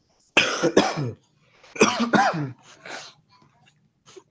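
A person with a cold coughing hard: two loud coughs about half a second in, another pair with a voiced, hacking edge near two seconds, then weaker coughs trailing off.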